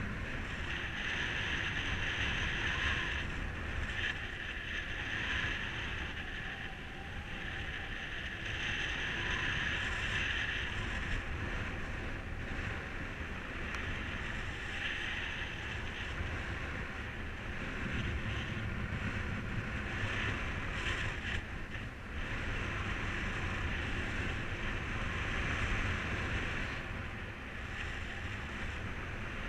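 Wind rushing over the microphone in paraglider flight, a steady noise that swells and eases in gusts every few seconds.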